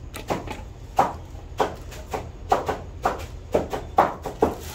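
Two heavy cleavers chopping and mincing meat in a wooden trough, with sharp knocks about twice a second, each ringing briefly.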